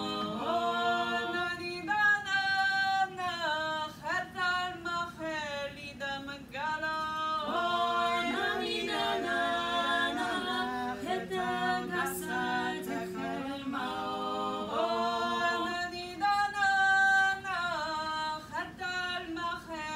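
A small group of women singing a traditional Georgian spinning song from Ach'ara a cappella, several voice parts at once in close harmony, in phrases with short breaks between them.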